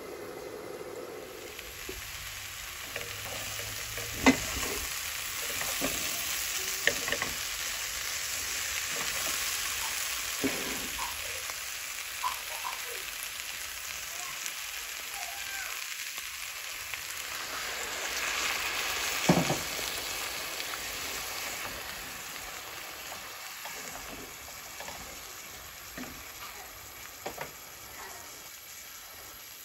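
Jackfruit seeds, small fish and onion frying in oil in a pan: a steady sizzle that comes up about a second in, with a wooden spatula stirring and now and then knocking against the pan.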